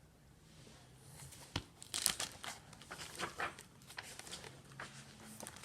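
Paper rustling and crinkling in short crackly noises, the sound of a picture book's pages being handled and turned, starting about a second and a half in.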